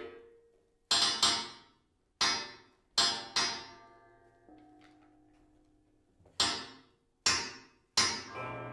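Steel car coil springs struck, about eight sharp metallic hits in irregular groups, each ringing and dying away, with a pause of about three seconds in the middle.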